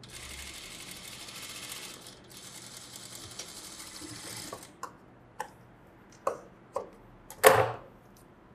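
Industrial lockstitch sewing machine running steadily for about four and a half seconds, easing briefly around two seconds in, as it stitches a dart in the fabric. It then stops, with a few light clicks and a loud, short rustle of cloth near the end as the piece is pulled off the machine.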